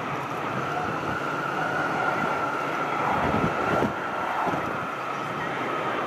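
Airbus A330-343's Rolls-Royce Trent 700 jet engines running as the airliner rolls out on the runway after landing, a steady high whine over a broad rumble. Gusty wind buffets the microphone.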